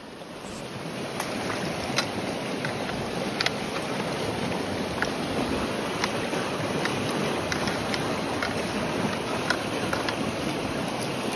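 Shallow water washing and lapping over pebbles, growing louder over the first couple of seconds, with scattered sharp clicks and small splashes.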